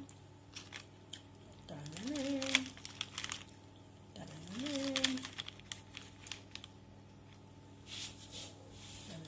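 Hands laying salami slices and shredded cheese on a pizza base on baking paper: light taps and paper crinkling. A voice hums a short note that rises and then holds, about two seconds in and again about four seconds in.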